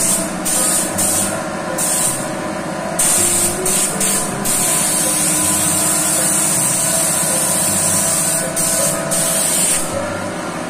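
Compressed-air paint spray gun hissing in bursts as the trigger is pulled and released: several short bursts, then one long hiss of about five seconds, then short bursts again.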